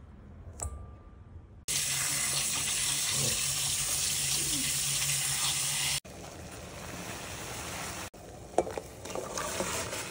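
Water at a rolling boil in a steel pot on a gas stove, giving a steady loud rush. The sound drops in level twice at edits. Over two-thirds of the way through there is one sharp knock, and near the end there is more splashing as green beans are dropped into the boiling water.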